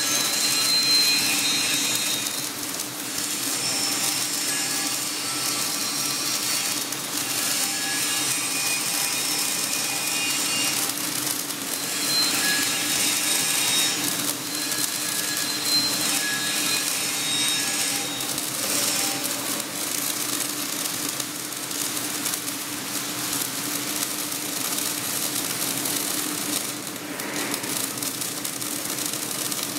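Flux-cored arc welding (FCAW) on a carbon steel plate in the 3G vertical position: the arc runs steadily without a break as the bead is laid.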